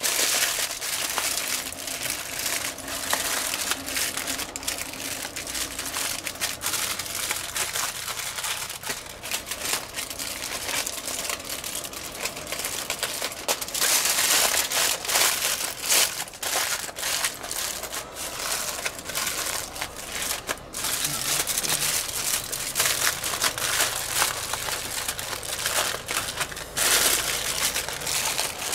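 Three-layer aluminium foil crinkling and crackling as it is folded and pressed tight by hand around meat to seal it, the Texas crutch wrap. Louder crumpling comes about halfway through and again near the end.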